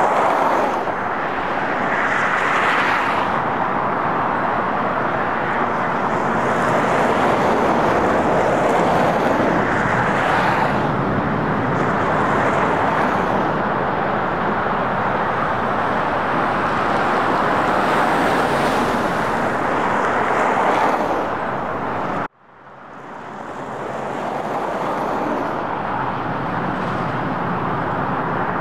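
Union Pacific rotary snow plow and its pushing locomotives working through deep snow, a steady rushing noise that swells a little now and then. About three-quarters of the way through it cuts out suddenly and fades back in.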